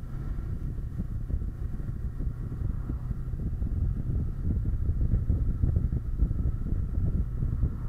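Wind buffeting the microphone of a bike-mounted camera, over the Kawasaki Versys 650's parallel-twin engine, as the motorcycle rides along a road. The rumble gets somewhat louder from about halfway through as the bike picks up speed.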